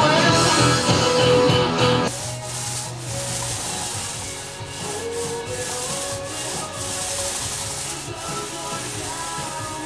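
Paint roller rolling wet paint onto a wall in up-and-down strokes, a steady hiss. Background music is loud for about the first two seconds, then drops low under the roller.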